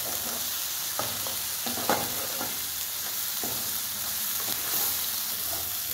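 Onion and spice paste frying in oil in a nonstick wok: a steady sizzle. A metal spatula scrapes and knocks against the pan a few times as the masala is stirred.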